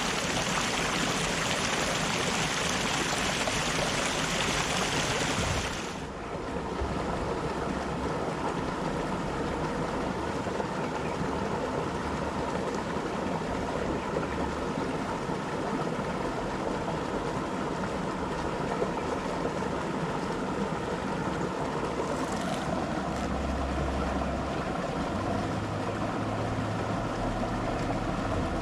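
Rushing river water, bright and hissing, until it changes abruptly about six seconds in to a duller, lower rush with a steady low hum beneath it.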